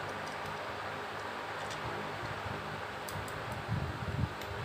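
Faint clicks and soft knocks of a wire being handled and fitted to the brass screw terminals of switches on an electrical board, over a steady fan-like background hiss. The knocks come near the end.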